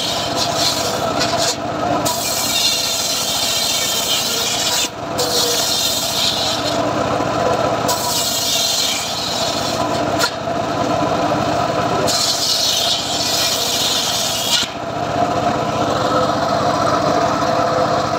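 Homemade bench-mounted circular saw ripping old teak planks: a steady blade-and-motor hum under a loud hissing rasp as the blade bites into the wood. The rasp comes and goes in spells of a few seconds as each plank is pushed through and drawn back.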